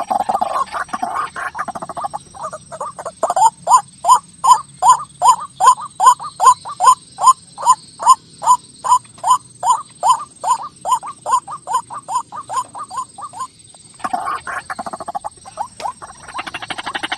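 White-breasted waterhen calling: a rough croaking chatter, then a long series of loud, evenly repeated notes about two to three a second, which quicken and grow weaker near the end. After a short pause the croaking chatter starts again.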